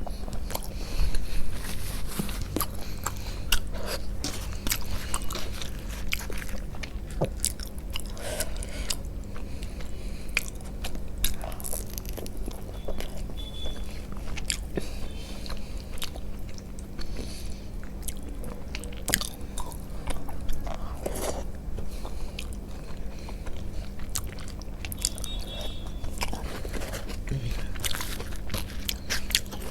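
Close-miked eating sounds: a person biting and chewing soft food, with irregular wet mouth clicks and smacks. A steady low hum runs underneath.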